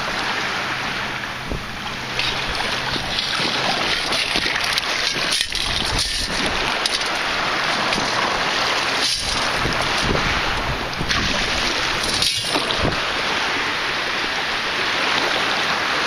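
Shallow water sloshing and lapping around a wader in a bay, with wind rushing over the microphone.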